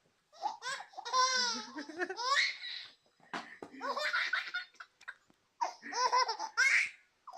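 A baby laughing in three long bouts of high-pitched belly laughter, with short breaks between them.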